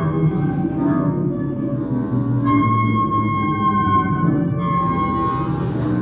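Experimental ambient music: sustained, wavering held tones over a dense low drone, from homemade instruments of glass tubes, clarinet reeds and piano wire played through guitar amplifiers. New held notes enter about two and a half seconds in and again near five seconds.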